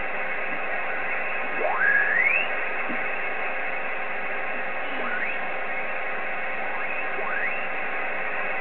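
Hiss of band noise from an Icom IC-7300 receiver being tuned down the 10-metre band in upper sideband, with three rising whistles as the dial sweeps past signals. The first whistle, about two seconds in, is the loudest.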